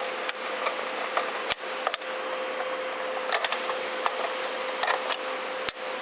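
Hex key working the panel screws of a glue machine: scattered small metallic clicks and ticks of the tool and screws, over a steady hiss with a faint hum.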